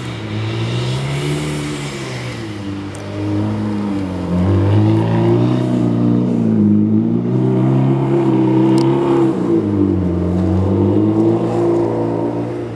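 2008 Mitsubishi Lancer Evolution X's turbocharged 2.0-litre four-cylinder, running through an aftermarket catback exhaust and downpipe, revving up and down again and again as the car drifts through snow. It gets louder from about four seconds in.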